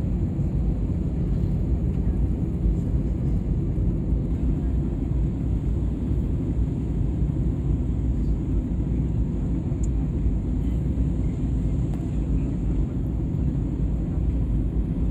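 Jet airliner cabin noise on the approach to landing: the steady low rumble of the engines and airflow, heard from inside the cabin at a window seat.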